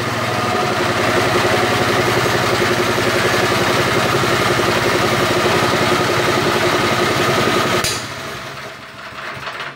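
Small petrol engine driving an air compressor, running steadily; about eight seconds in its sound drops suddenly and winds down.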